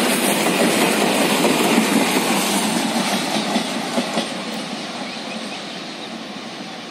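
Loaded double-stack container freight wagons and the brake van rolling past on the rails, wheels clacking over the rail joints. The sound fades steadily after about three seconds as the end of the train draws away.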